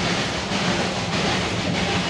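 Darjeeling Himalayan Railway steam toy train running along the track: a steady rumble with a regular, repeating pulse.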